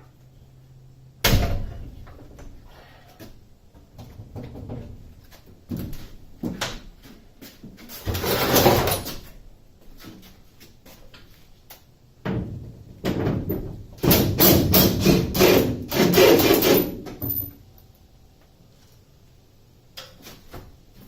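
Metal work noise from unbolting a school bus's rear air conditioner: a sharp knock near the start, then bursts of rattling, clanking and scraping. The longest and loudest bursts come in the second half.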